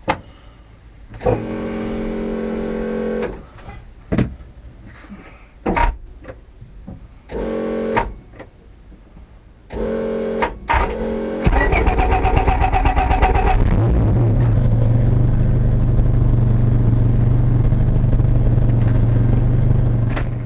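Honda Del Sol's turbocharged engine being started: several short bursts of starter cranking with gaps between them, then the engine catches about eleven seconds in and runs steadily. The hard start follows the owner's remark that the negative battery cable has been giving trouble.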